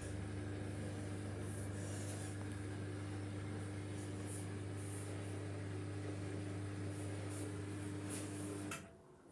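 Samsung digital inverter washing machine running its spin cycle: a steady hum with a constant whine over the sound of the turning drum, cutting off suddenly near the end.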